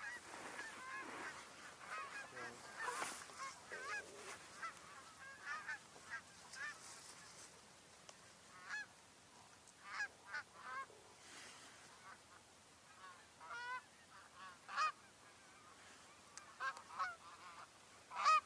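Canada geese honking and clucking: many short calls packed together for the first few seconds, then scattered singly and in small clusters with gaps.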